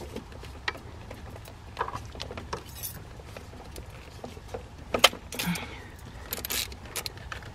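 Metal hand tools clinking and clicking as a 13 mm socket and wrench are sorted out and fitted to a bolt. There is a sharp metallic clack about five seconds in, followed by short rasping scrapes.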